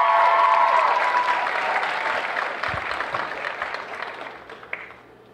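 Audience applauding and cheering, with high whoops in the first second; the clapping dies away over the next few seconds.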